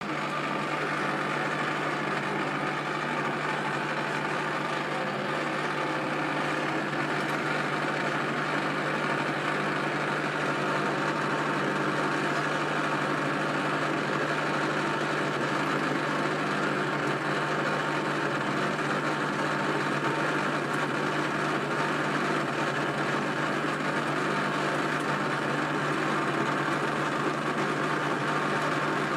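Servis Caress 1300 washing machine in a fast spin, a steady roar over a constant low hum: the sound of badly worn drum bearings.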